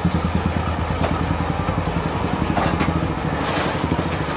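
A small engine running steadily at idle, a low even throb, with a few faint clicks over it.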